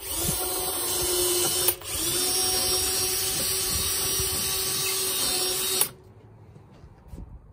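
Cordless drill running at speed as its bit bores through a wooden workbench top, with a steady motor whine. It stops briefly about two seconds in, then runs on and cuts off about a second before the end.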